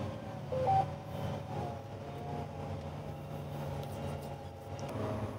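John Deere tractor running steadily, heard from inside the cab as a low, even hum. About half a second in, a short two-note electronic beep sounds, low then higher.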